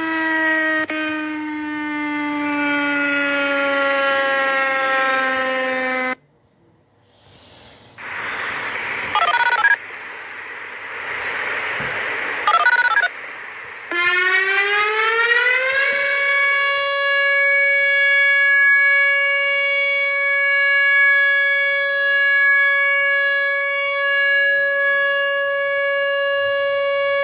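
Outdoor tornado warning sirens in separate recordings. One siren winds down in falling pitch and cuts off. A noisier recording follows, with a faint wavering tone and two brief loud swells. Then another siren winds up over about two seconds and holds a steady tone.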